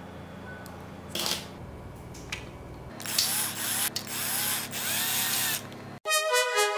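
Small cordless electric screwdriver whirring as it turns a screw in the plastic underside of a die-cast model car, in two or three short spells from about three seconds in, after a single light knock about a second in. Music with brass starts near the end.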